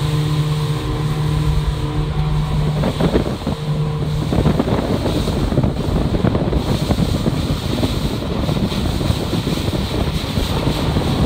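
Motorboat running at speed: a steady engine hum for the first few seconds, then mostly the rush of water along the hull and wind buffeting the microphone.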